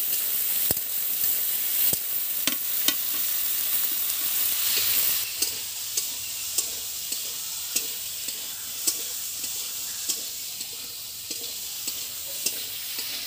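Cauliflower, potato and peas sizzling as they fry in oil in a metal karahi, stirred with a long metal spatula that scrapes and knocks against the pan. The knocks become a regular rhythm of about two a second in the second half.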